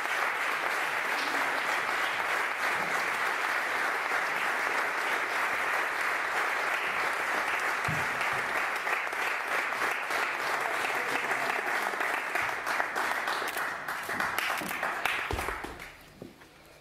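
Audience applauding steadily with many hands, the clapping dying away near the end.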